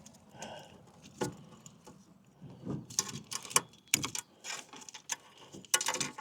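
Irregular clicks, knocks and rattles of a cap being fitted and twisted onto the end of an RV macerator discharge hose, thickest in the second half.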